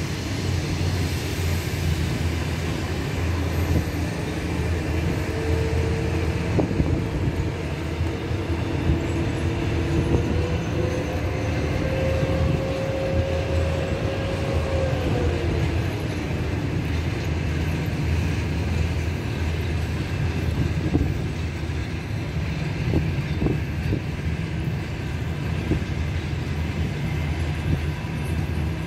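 Passenger coaches of an arriving train rolling past on the rails with a steady rumble. From about five seconds in to about sixteen, a thin squeal runs over it, climbing slightly and then sliding down and fading.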